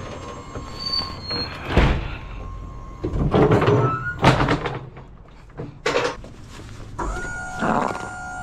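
Metal clanks and chain rattling as a delivery truck's aluminium liftgate platform is folded and stowed, several separate knocks with a noisier clatter around the middle. A steady whine starts near the end.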